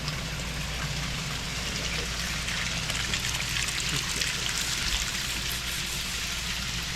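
Steady hiss of running or splashing water over a low, steady hum.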